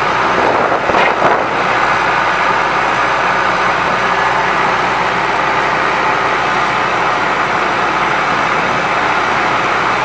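John Deere 310SE backhoe's 4.5 L four-cylinder turbo diesel engine running steadily, with a few brief knocks about a second in.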